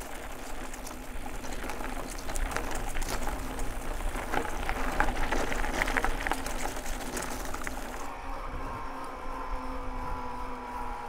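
An e-mountain bike in motion. For about eight seconds there is crackling rolling noise full of small clicks. Then the crackle drops away and the steady whine of the Yamaha PW-SE mid-drive motor comes through.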